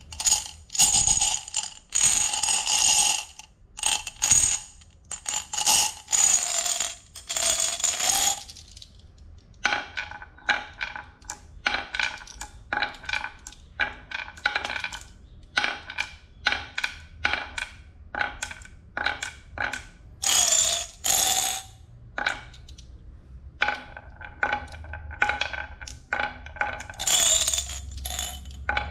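Marbles rolling and clattering down a wooden HABA marble run: irregular clicks and rattling runs as they drop from piece to piece, with several longer ringing clatters, the loudest near the start and twice more near the end.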